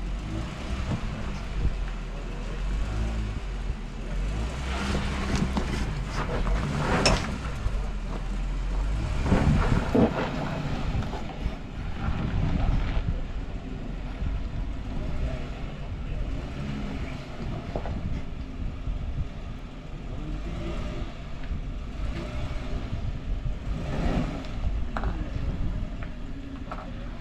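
Off-road 4x4 engine running as the vehicle crawls over rock ledges, a steady low rumble with a few louder surges.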